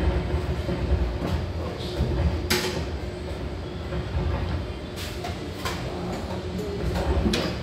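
Steady low rumble of room noise, broken by a few sharp knocks and clicks from musicians handling their gear between songs; no music is playing.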